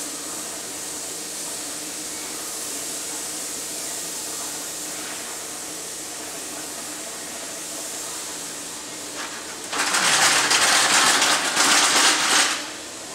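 Steady hiss of compressed air from paint-shop spray equipment with a faint machine hum, then about ten seconds in a loud blast of air hissing for nearly three seconds before cutting back.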